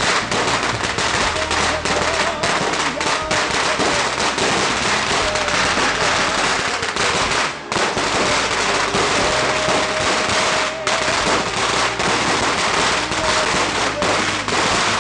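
A long hanging string of firecrackers going off in a dense, continuous crackle of rapid bangs, with two short lulls about halfway through and a few seconds later.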